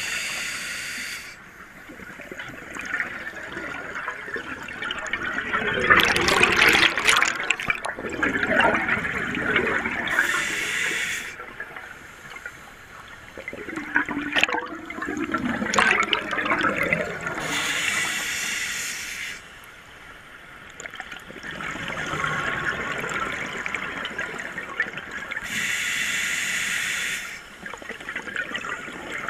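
A scuba diver's regulator breathing, heard underwater: a short hiss of each inhale through the demand valve, then a longer, louder bubbling exhale, repeating about every eight seconds.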